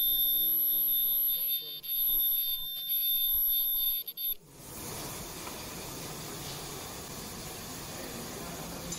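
Electronic alarm buzzer on a disposable mask-making machine, sounding in on-off pulses over a steady high whine, then cutting off suddenly about four seconds in. A steady hiss follows.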